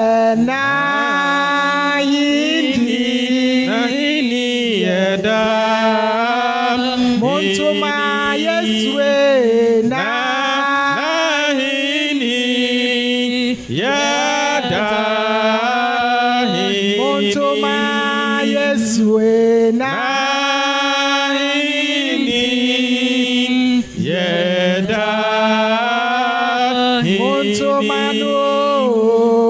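Church worship singing led over a microphone, one voice carrying long rising and falling sung phrases with other voices joining, over a steady low held note. The singing breaks off briefly twice, about halfway through and again near the end.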